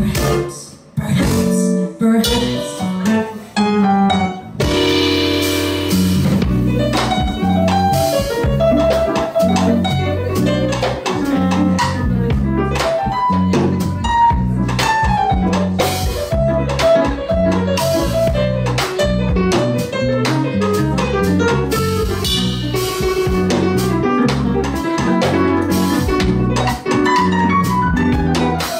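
Live band playing a jazzy number: electric guitar, bass and stage keyboard over drums with a steady beat. The band stops for a short break about a second in, then plays on.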